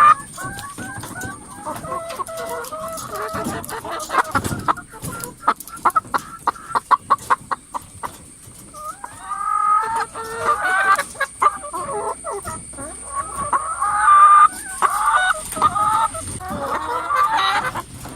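A flock of hens clucking and squawking, many calls overlapping, loudest in the second half. A quick run of sharp taps comes midway, and a thin steady high tone runs under it all until near the end.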